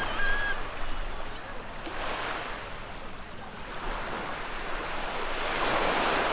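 Small sea waves breaking and washing up the sand, one wash around two seconds in and a louder one building near the end.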